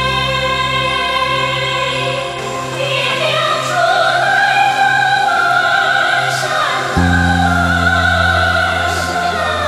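Background music: a sung choral line over sustained orchestral chords, with the bass note changing about seven seconds in.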